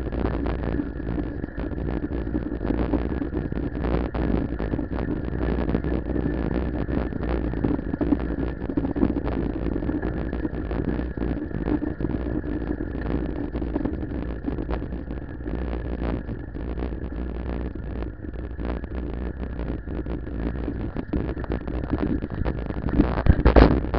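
Riding noise from a camera mounted on a moving bicycle: a steady rumble of tyres on the road and wind on the microphone, with a faint steady high whine. A loud knock near the end.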